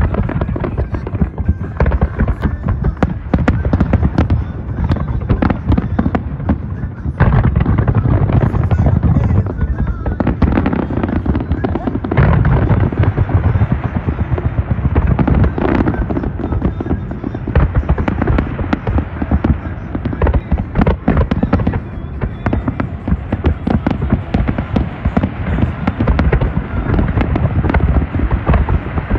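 Large aerial fireworks display: a dense, continuous barrage of shell bursts and crackling. Heavier low booms come in about seven seconds in and again around twelve to sixteen seconds in.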